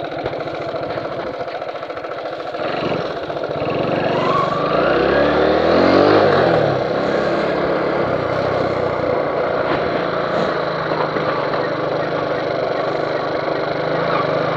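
Kawasaki Max 100 motorcycle engine running steadily, then revving up about four seconds in as the bike pulls away. The pitch rises to a peak about six seconds in, then eases back to a steady run at low speed.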